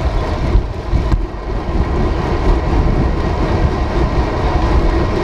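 Steady wind rush and rumble on the microphone of a camera mounted on a moving bicycle's handlebars, mixed with tyre noise on asphalt.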